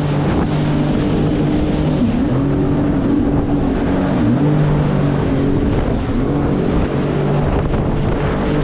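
Jet ski engine running at speed, its pitch dipping briefly twice, with wind rushing over the microphone.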